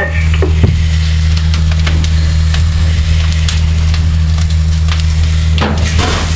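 Wood fire burning in a flashover training container, crackling with many sharp pops over a loud, steady low rumble.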